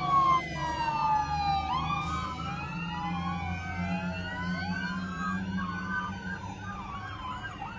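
Several emergency-vehicle sirens wailing at once, their pitches rising and falling out of step with one another, over the low rumble of passing vehicles. Near the end one siren switches to a fast warbling yelp.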